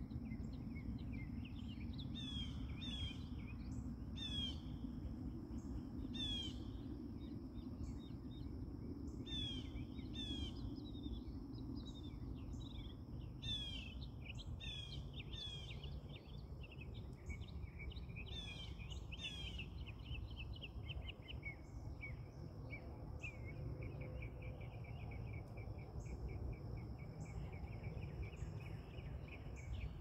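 Small birds calling: short, falling chirps in quick bunches, then a fast, even run of chirps in the second half. Under them run a steady low rumble and a thin, steady high tone.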